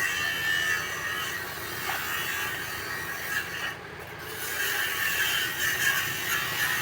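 A hand ratchet wrench clicking steadily as fasteners are tightened during engine reassembly.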